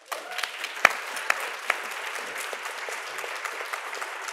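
Audience applauding, starting all at once and holding steady, with a few sharp, louder claps in the first second and a half.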